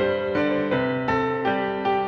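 Background piano music: a slow, gentle run of single piano notes, a new note about every third of a second.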